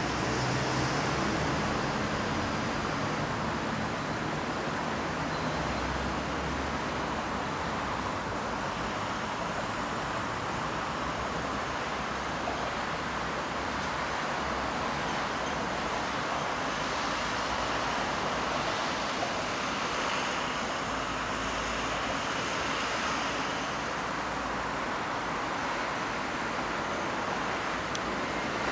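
Steady distant city traffic noise, an even hiss with no single event standing out.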